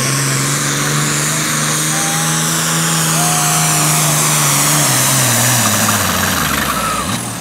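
Super Farm pulling tractor's turbocharged diesel engine running at high, steady revs, then its pitch falls away near the end as it is throttled down.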